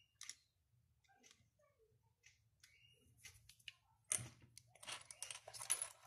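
Small dry seashells clicking and clattering against each other as a hand rummages through a loose pile of them. A few scattered clicks at first, then a denser run of clatter over the last two seconds.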